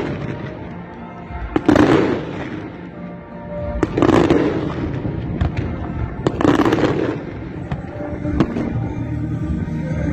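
Fireworks going off: three loud bursts about two seconds apart, each trailing a hissing spray, then a scatter of sharp single cracks near the end, over background music.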